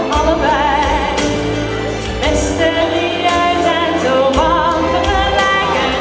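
A woman singing sustained, wavering notes into a microphone over a pop backing track with a steady beat.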